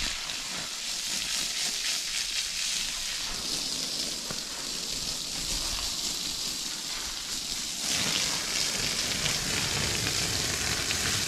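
Water spraying from a hose onto something being washed of pine needles: a steady hiss that starts suddenly and grows louder and fuller about eight seconds in.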